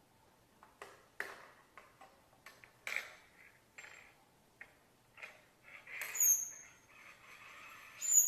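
A small bird moving about with scattered light taps and clicks, then two short high chirps near the end, about two seconds apart.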